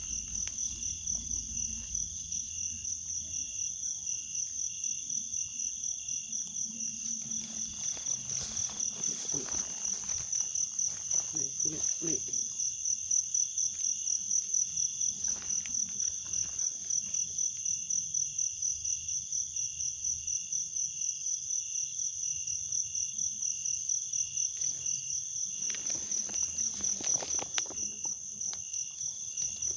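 A steady insect chorus, crickets trilling in one high, rapidly pulsing note, with a few brief rustles partway through and near the end.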